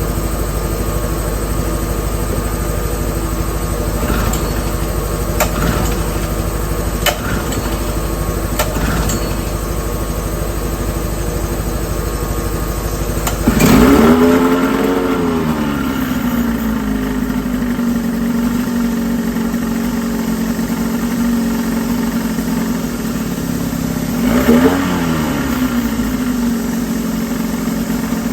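Mercury 200 20 hp two-stroke outboard in a water-filled test barrel firing up about halfway through, revving up and falling back to a steady idle, then revved briefly once more near the end. It is the motor's first run after a carburetor rebuild with a new kit and gaskets; it needed a little throttle to start, and the choke won't stay open.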